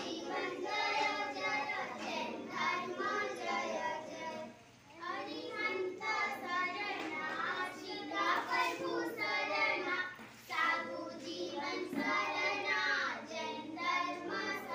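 A group of children singing a Jain prayer together in unison, with brief pauses between lines.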